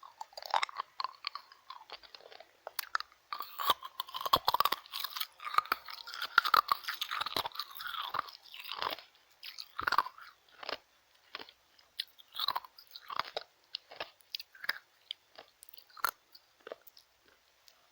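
Ice cubes being bitten and crunched in the mouth, close to the microphone. A dense run of crunching comes in the first half, then slower, scattered crunches and clicks.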